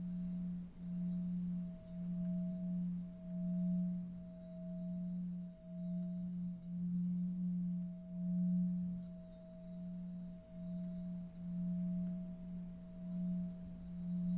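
Meditation drone: a steady, pure low tone with a fainter higher tone above it, swelling and fading roughly once a second.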